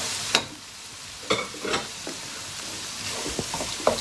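Tomato-onion masala sizzling and frying in a non-stick pan while a wooden spoon stirs it. The spoon gives a few sharp knocks and scrapes against the pan, the strongest just after the start.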